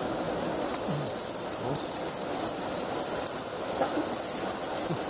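Steady, high-pitched chorus of insects trilling, with a few faint, low, downward-sliding calls underneath.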